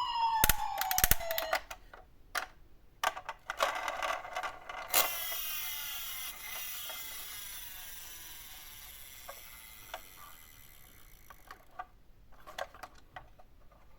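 A toy ambulance's electronic siren, pulsing and falling in pitch, cuts off about a second in. Small plastic clicks and knocks follow, then a sharp knock about five seconds in that leaves a long fading whir, dying away a few seconds later. Faint ticking clicks come near the end.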